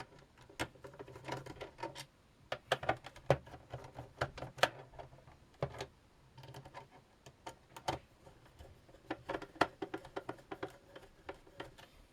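Irregular small clicks, taps and rattles of screws and a screwdriver being worked into a ZX Spectrum's plastic case during reassembly, in uneven clusters with short pauses.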